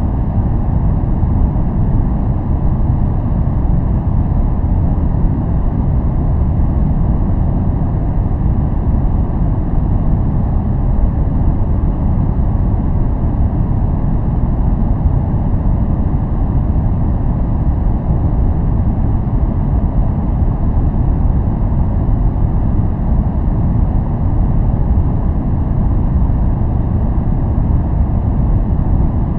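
Steady, unchanging noise from a white-noise focus track: a deep rumbling hiss, heaviest in the bass with little treble, without any change or event.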